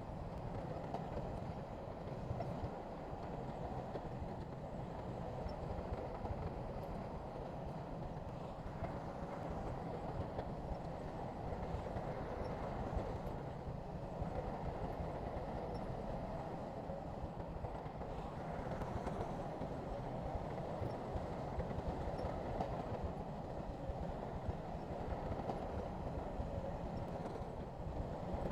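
Heavy earthmoving machinery, a bulldozer or dump truck diesel engine, running steadily with a continuous low rumble.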